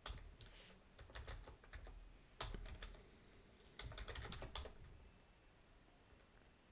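Computer keyboard being typed on in short runs of faint keystrokes, stopping about five seconds in.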